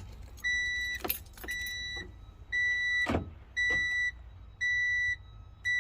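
Electronic warning beeper giving a steady high beep about once a second, each beep about half a second long, with a sharp knock about three seconds in.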